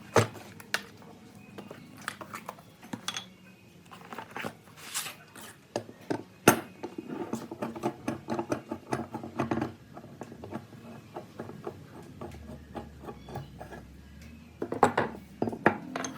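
Irregular clinks and knocks of tools and hardware being handled on a workbench, a few sharp knocks standing out.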